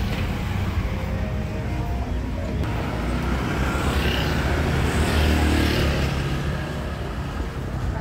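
Road traffic: motor vehicle engines running in a steady low rumble, with one vehicle passing close and growing loudest about five seconds in before fading.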